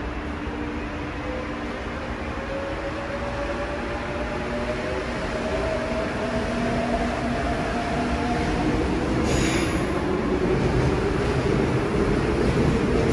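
Korail electric subway train pulling away from an underground platform. The whine of its traction motors rises in pitch as it gathers speed, and the rail rumble grows louder, with a brief high hiss about two-thirds of the way through.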